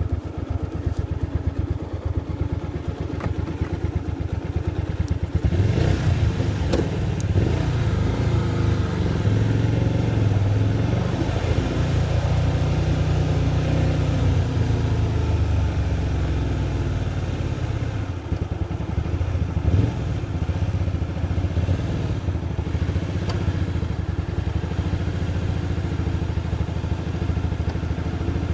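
Hyosung GTR250's 250 cc V-twin engine running steadily at low revs. About six seconds in it revs up with a few clunks, and its note swells and falls over the next ten seconds before it settles back to a steady low running note.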